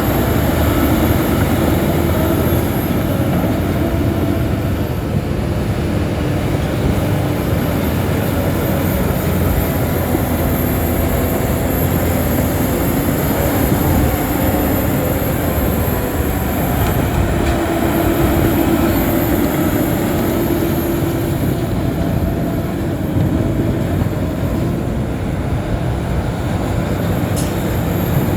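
Shantui crawler bulldozer's diesel engine running steadily under load, with a continuous metallic clatter and squeal from its steel tracks.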